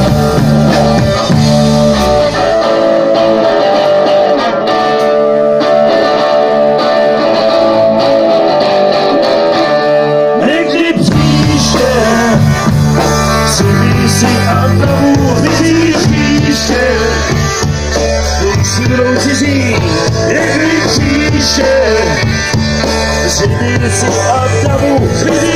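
Live rock band playing loud: electric guitars over bass and drum kit. About two seconds in the bass and drums drop out, leaving the guitar on its own, and the full band comes back in around eleven seconds in.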